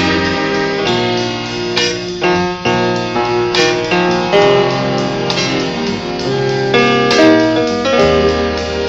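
Instrumental break in a Thai luk thung song played from a vinyl LP: the band plays a melody line over bass, with no singing.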